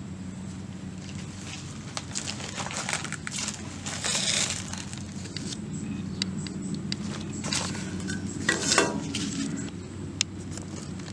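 Rustling and crackling on dry palm leaves with light knocks and clatter as a metal soup pot is handled, with two louder scrapes about 4 and 8.5 seconds in, over a steady low hum.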